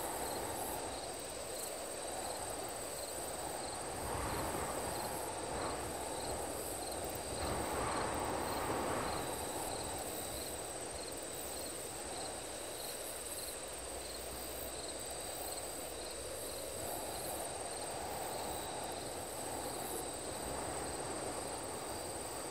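Designed night-time sci-fi ambience: a steady high cricket-like trill with a faint regular pulse, over a hissing, rushing noise that swells about four seconds in and again more strongly around eight seconds in.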